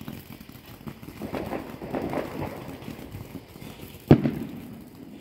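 A firework going off with one sharp bang about four seconds in, after softer noise.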